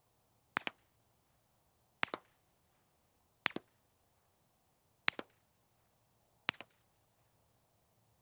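Ruger Mark IV .22 pistol with a Bowers Bitty suppressor, the can run wet, firing CCI subsonic .22 LR rounds: five suppressed shots about a second and a half apart, each with a quick second crack just after it.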